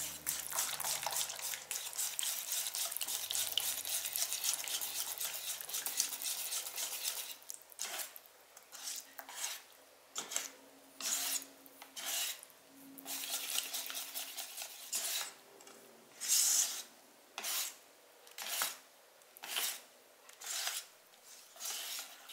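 Wire balloon whisk scraping and clinking against a stainless steel bowl while mixing egg yolks into a thick pandan cake batter. Fast, continuous whisking for about seven seconds, then slower separate strokes about once a second.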